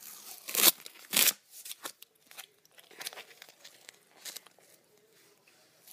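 A strip of tape being pressed down and pulled up off a cutting mat by hand: two loud rustling rips about half a second apart about a second in, then softer crinkles and taps.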